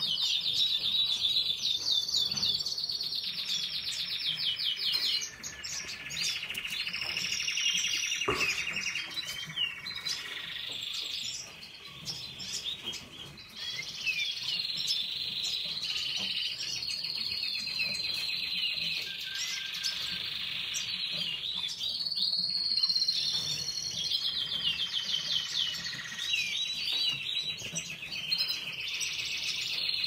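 Domestic canary singing: long runs of rapid rolling trills and chirps, with a brief lull about halfway through.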